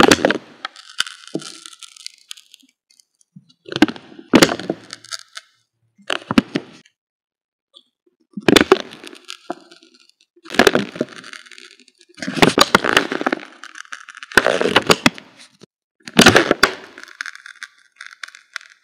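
Pen scratching across paper in short bursts, one letter stroke after another about every two seconds, crackly and close, with silent gaps between.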